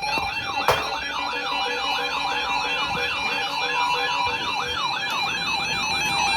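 A siren yelping, its pitch sweeping up and down about three times a second, over background music: an alert tone ahead of a special marine warning. A sharp click sounds less than a second in.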